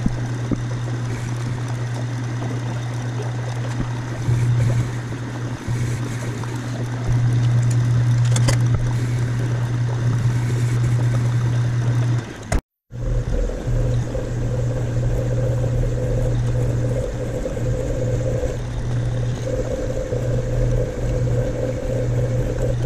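Metal lathe running steadily with a strong low hum while machining the splined end of a truck steering column. The sound cuts out for a moment a little past halfway. After that, a twist drill in the tailstock bores into the spinning part, adding a steady mid-pitched tone over the hum.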